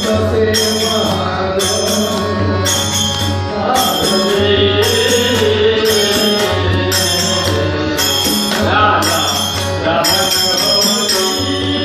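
Devotional bhajan sung live by a man's voice, accompanied by small hand cymbals struck in a steady beat with a metallic ring, and a hand drum.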